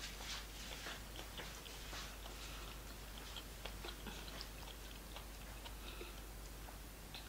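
Faint chewing of a mouthful of soft Nigerian food, with small irregular mouth clicks.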